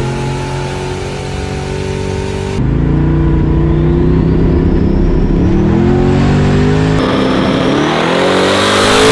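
Street race car's engine at full throttle, its pitch climbing as the car accelerates hard. The sound jumps abruptly about two and a half seconds in and again about seven seconds in, as separate clips are cut together.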